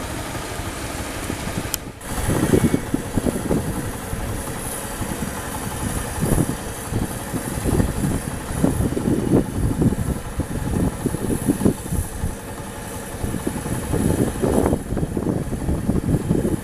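Combine harvester engine running with an uneven, surging rumble; a brief break about two seconds in.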